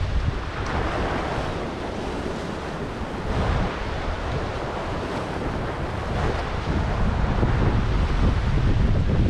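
Sea surf washing against a rocky shore, with strong wind buffeting the microphone in uneven gusts.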